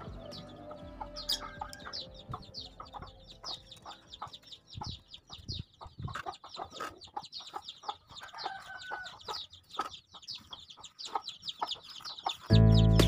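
Chickens in the background, a quick string of high, falling peeping chirps with scattered small clicks among them. Loud music cuts in near the end.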